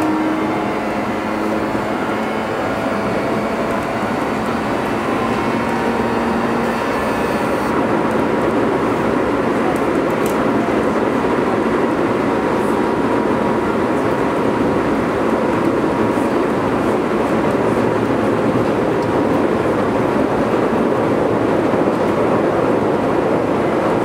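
Keio 8000 series electric train heard from inside the car directly above its Hitachi GTO-VVVF inverter. Several steady whining tones from the inverter and motors fade out about seven seconds in. What is left is the steady rumble and hiss of the train running at speed on the rails.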